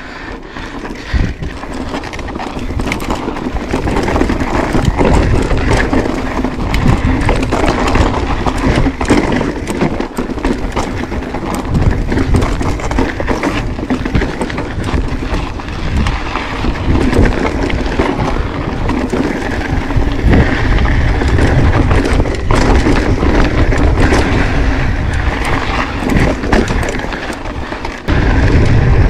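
Mountain bike ridden over rocky, sandy desert trail: tyres crunching and the bike rattling and knocking over bumps, with wind buffeting the handlebar camera's microphone. The noise builds over the first few seconds.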